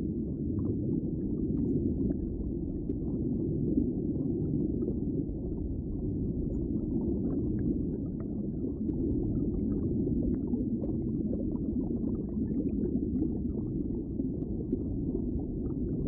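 Muffled underwater ambience: a steady low rush of water with faint scattered crackles.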